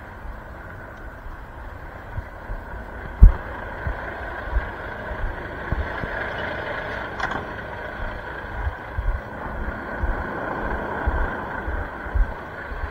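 Volvo FH truck idling steadily, with wind and handling rumble on the microphone. A single loud thump about three seconds in.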